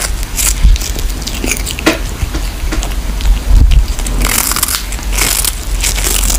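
Kitten gnawing and chewing on a whole small fish held in its paws, close to the microphone: irregular crunching bites, some much louder than others.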